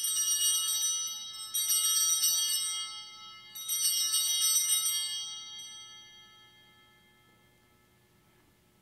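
Altar bells rung three times at the elevation of the host, about two seconds apart. Each ring is a shaken cluster of small bells that jingles, then fades over a few seconds.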